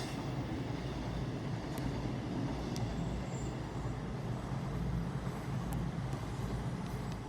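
CrossCountry Voyager diesel-electric multiple unit passing through: a steady rush of wheels and underfloor diesel engines with a low hum, broken by a few short sharp clicks.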